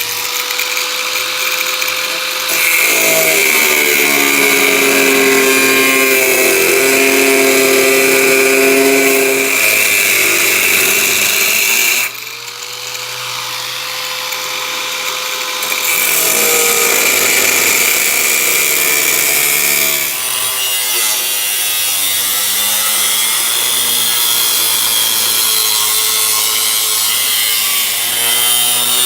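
Hand-held power tool cutting through the sheet steel of an old pickup bed. Its motor spins up to speed, then drops in pitch and turns rougher as it bites into the metal. It stops about twelve seconds in, spins up again and cuts on.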